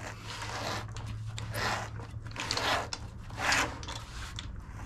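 A sharp blade slicing through the surround of an 18-inch Sundown Audio NS.v4 subwoofer, cutting it free of the basket at its outer edge. It goes in several rasping strokes, roughly one a second, over a low steady hum.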